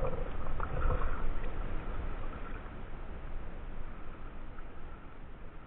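Steady low rumbling of wind on the microphone, with water lapping against a kayak's hull.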